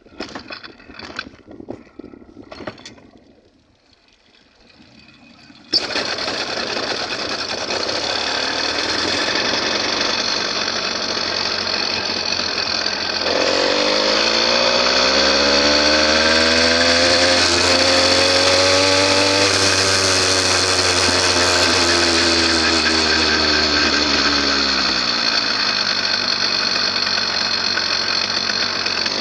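A few clicks and knocks, then a bike's engine comes in abruptly about six seconds in and runs steadily as the bike rides along. Its pitch rises and then falls back.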